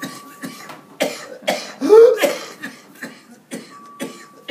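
A man coughing hard in a run of harsh hacking bursts, loudest about two seconds in with a rasping, rising gasp.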